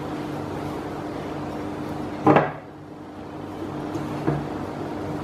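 Hands rubbing cold butter into flour in a glass mixing bowl, a soft rustling and squishing as the mixture is squeezed into crumbs, over a steady low hum. One sharp knock about two seconds in and a lighter tap near the end.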